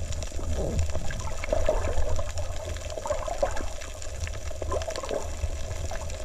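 Underwater noise heard through a submerged camera: a steady low rumble with water swishing and many small scattered clicks and crackles.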